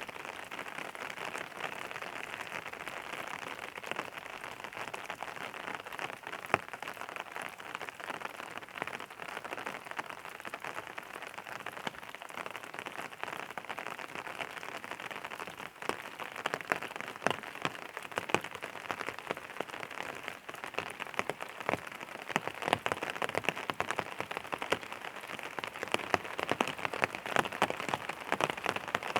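Steady rain falling on a hard surface, a constant patter with many individual drops ticking sharply; the drops come thicker and louder in the last few seconds.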